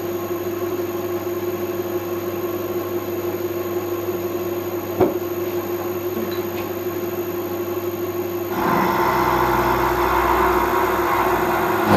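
Milling machine spindle running with a steady hum as the cutter machines a tooth slot into a metal nut on a rotary table. About eight and a half seconds in, the cut turns louder and rougher with a low rumble: the rotary table was not locked, and the backlash let the work move under the cutter.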